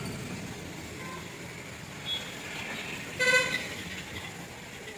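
A vehicle horn honks once, briefly, a little over three seconds in, over steady background noise.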